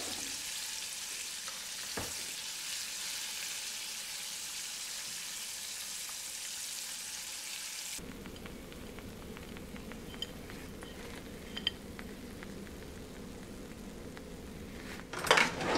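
Breaded bowfin pieces deep-frying in a saucepan of oil heated to 350 degrees: a steady high sizzle that cuts off abruptly about halfway through. After it come faint room noise, a few light clicks, and a couple of louder knocks near the end.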